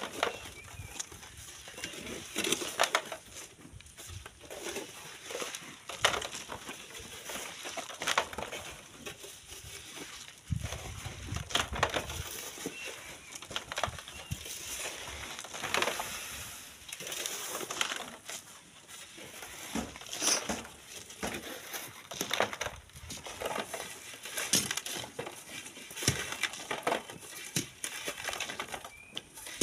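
Irregular crunching, scraping and knocking of sand and stones being dug and moved by hand, with sharp knocks every second or two.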